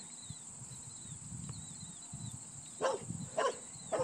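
A dog barking three short, sharp barks about half a second apart, near the end.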